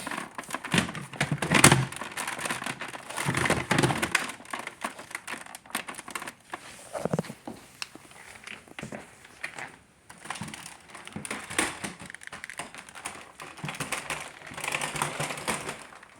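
Irregular clicking, knocking and rustling from hands working on a Shark Rotator vacuum cleaner close to the microphone.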